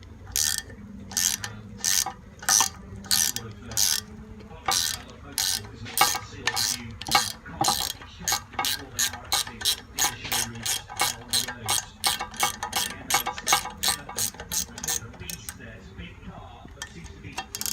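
Ratchet wrench clicking steadily as it backs a broken exhaust manifold bolt out of an LS cylinder head, a click every third to half second, coming faster through the middle stretch.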